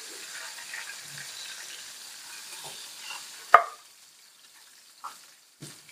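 Hot oil sizzling in a small frying pan with whole dried red chillies, cumin seeds and green chillies for a tempering (baghar/tadka), the sizzle dying down after about three and a half seconds. A sharp clack comes at that point, then two fainter knocks near the end.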